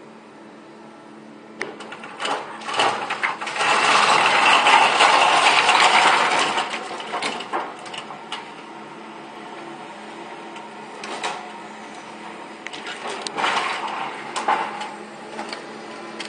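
An excavator's grab tearing apart a timber shed roofed with corrugated sheets: a long spell of cracking wood and crashing sheets from about three and a half to seven seconds in, with shorter cracks and knocks before and after, over the steady hum of the excavator's engine.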